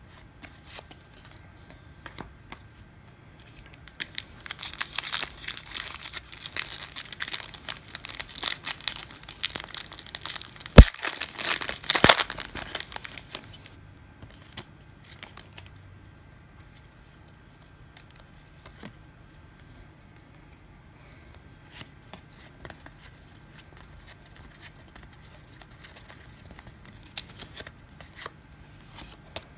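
Baseball card-pack wrapper crinkling and tearing as it is handled, dense for several seconds from about four seconds in, with two sharp snaps near the middle. After that come only quieter handling noises with scattered light ticks.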